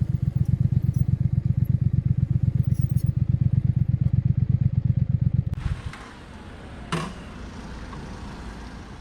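Triumph Thruxton RS 1200 cc parallel-twin engine idling with an even, low pulsing beat, which stops about two-thirds of the way through; a single sharp click follows about a second later over a faint steady hiss.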